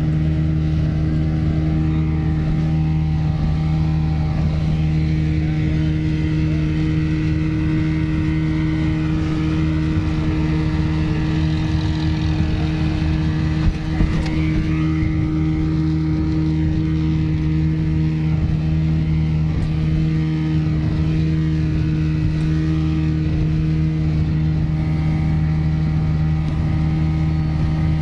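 Speedboat engine running at a steady cruising drone, heard from aboard the moving boat, with one short thump a little before halfway through.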